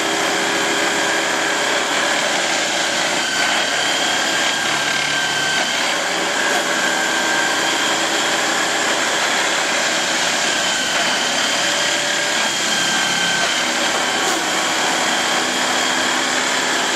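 Railway multiple tie tamper running as it creeps slowly along the track, a steady machinery noise with a high whine over it.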